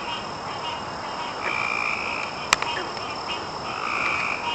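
Frogs calling in a chorus: short trilled calls repeating every second or two, over a steady high-pitched insect drone. One sharp click about two and a half seconds in.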